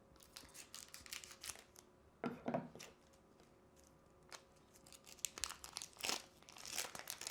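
Foil Pokémon booster pack being torn open and crinkled in the hands: a series of short rips and rustles, heavier about two seconds in and again near the end.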